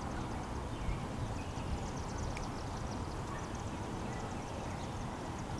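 Distant diesel freight locomotive approaching, a steady low rumble, with faint high chirping of birds or insects over it.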